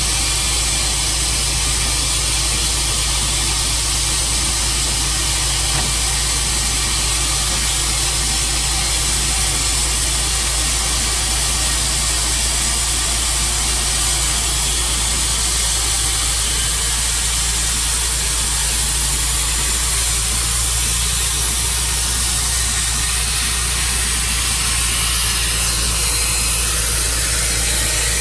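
Sawmill's gas engine and blade running steadily, a constant unbroken noise.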